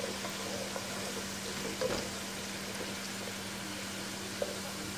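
Sliced onions frying in hot oil with whole spices, a steady sizzle, stirred with a wooden spoon that gives a few light scrapes against the pan. The onions are at the browning stage, close to golden brown.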